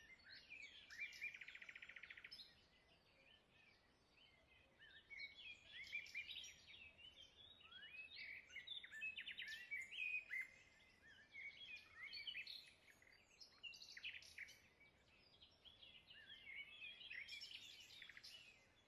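Faint birdsong from several small birds: short chirps and whistled notes that rise and fall, with a rapid buzzy trill about a second in.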